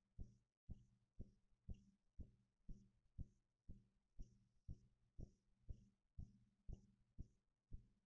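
Faint, steady rhythm of low, dull thumps, about two a second, like a slow drumbeat or heartbeat; its source is unidentified.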